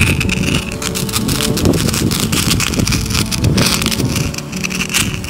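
Wind rumbling on the microphone, with crackling from a lit sparkler burning.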